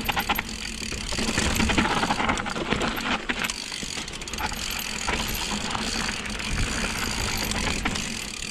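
Giant XTC mountain bike rolling down a steep dirt trail: tyre noise and rumble over the ground, with the frame and drivetrain rattling in bunches of sharp clicks. The rear freehub ticks while the rider coasts.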